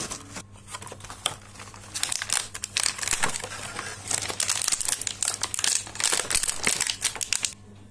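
Thin clear plastic packaging crinkling as hands handle an action figure wrapped in it and work it loose. The crinkling is sparse at first, turns dense from about two seconds in, and stops just before the end.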